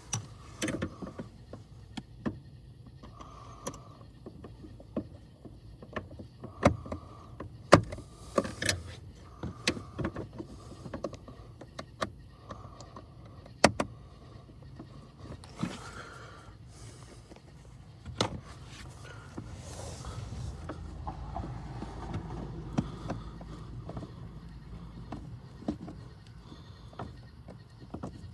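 Scattered clicks and knocks of hand tools and plastic parts being handled while a blower motor resistor is fitted under a van's dashboard, over a low steady hum.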